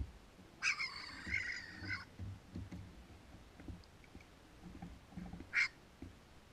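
An animal's harsh call with several pitched bands, lasting over a second, starting just under a second in. A short sharp call comes about five and a half seconds in, over soft low knocks of kayak paddle strokes.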